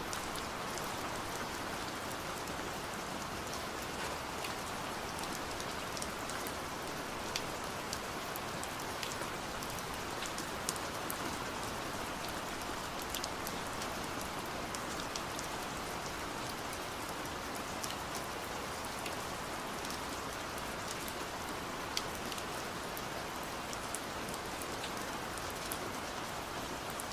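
Steady rain falling, a constant hiss with many single drops ticking sharply on a nearby surface.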